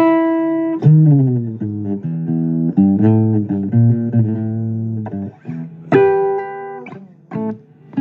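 Blues guitar instrumental phrase with a bass line: plucked notes and chords, a note sliding down about a second in, and a fresh chord struck near the end.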